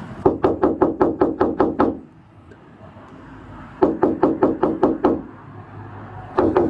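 Rapid knocking on a door, about six knocks a second, in three runs with short pauses between them.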